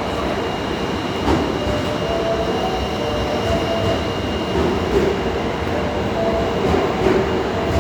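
Osaka Metro Tanimachi Line subway train on the move, a steady rumble of running noise with faint thin squealing tones. A few sharp rail clicks come about a second in, near the middle and near the end.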